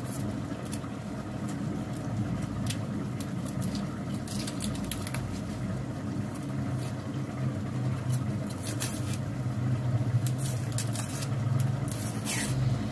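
Knife cutting an onion held in the hand, a scatter of short crisp cuts, over a steady low hum.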